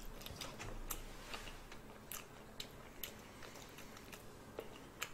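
Faint, irregular wet clicks and crunches of someone eating grilled red shrimp close to the microphone, chewing and working the shells.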